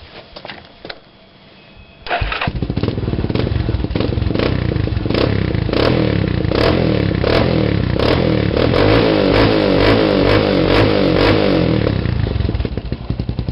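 Yamaha Raptor 350 ATV's single-cylinder four-stroke engine starting about two seconds in, then running loud through an HMF slip-on exhaust with its quiet core removed.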